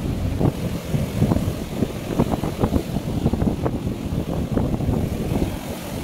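Wind rumbling on the microphone in uneven gusts, over the sound of surf washing across shoreline rocks.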